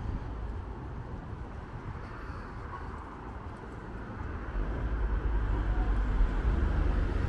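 Road traffic on a street: cars passing with a steady hum of engines and tyres, and a low rumble building from about halfway through.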